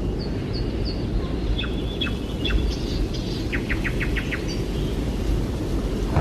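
Small birds chirping: a short series of four high notes, then a few whistled notes, then a quick rattling run of about seven chirps. Under them runs a steady low rumbling noise.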